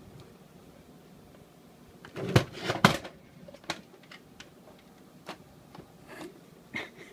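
Light knocks and clatter from a cat nosing and pawing at a small box-shaped cat coin bank on a wooden floor. There is a quick cluster of knocks about two seconds in, the loudest, then a few scattered single clicks.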